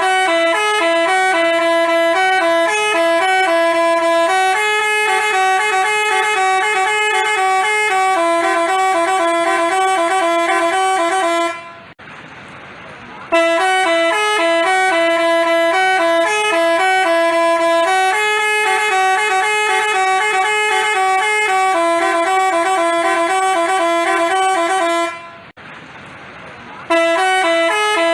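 Basuri telolet multi-tone horn playing a quick stepping tune. It runs for about eleven seconds, breaks off briefly, plays the same phrase again, then pauses and starts a third time near the end.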